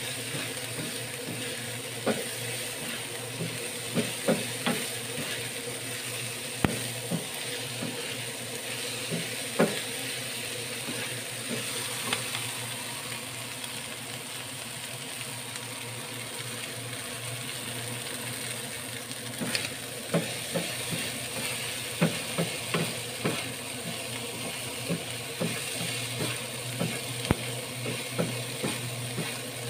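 Stir-fry of chilies and field snails sizzling in oil in a non-stick frying pan as a wooden spatula stirs it, with irregular knocks and scrapes of the spatula against the pan.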